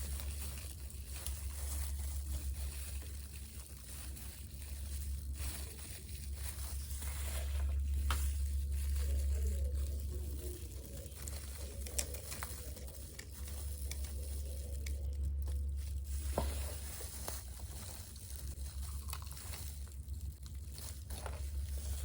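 Close-miked eating sounds: chewing crispy fried chicken and fries, with fine crackling and a few sharp clicks.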